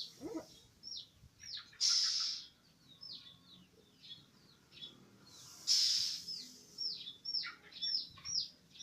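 A small bird chirping over and over: short, high chirps that fall in pitch, about one or two a second. Two short bursts of noise break in, about two seconds in and again near six seconds.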